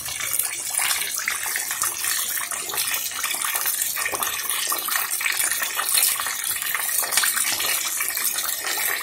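A whole fish deep-frying in hot oil in a pan, with a steady dense sizzle and crackle. The first side is nearly done and ready to be turned.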